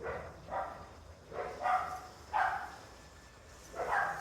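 A dog barking repeatedly, about six barks with a short pause before the last one.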